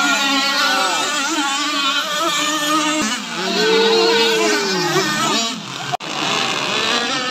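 Several RC racing powerboats' small engines whining together at speed, their pitches rising and falling as the boats pass and throttle through the course. The sound breaks off abruptly about three seconds in and again briefly near the end.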